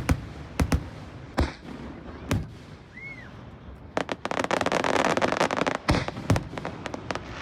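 Fireworks going off: several sharp separate bangs, then a dense run of crackling from about four seconds in that lasts a couple of seconds, with a few more bangs after it.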